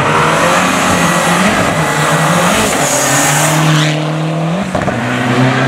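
Lancia Delta rally car's engine pulling hard away from the start, its pitch climbing and dropping with the gear changes, with a steep rise and a sudden drop near the end.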